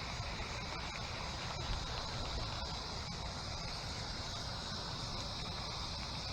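Wind buffeting the microphone with a low rumble, over a steady high drone of insects.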